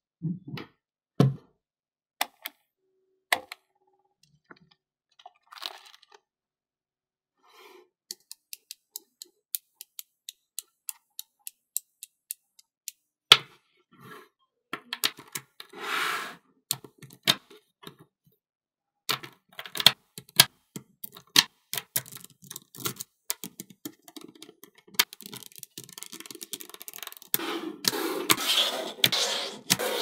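Small magnetic balls clicking and snapping together as they are pressed and joined into shapes: sharp, irregular ticks, with a denser run of clattering near the end as a larger mass of balls is shifted.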